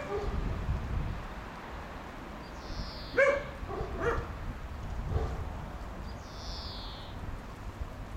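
A dog barking: a short bark right at the start, then two more about three and four seconds in. Between them a high, falling whistle-like call repeats every few seconds over a low rumble of wind on the microphone.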